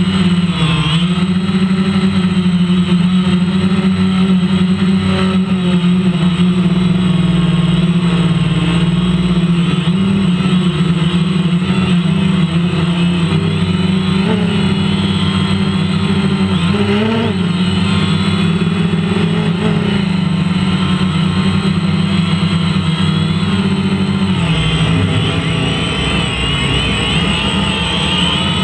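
A drone's electric motors and propellers running with a steady, loud whine whose pitch wavers slightly as the throttle changes, with a brief shift about two-thirds of the way in.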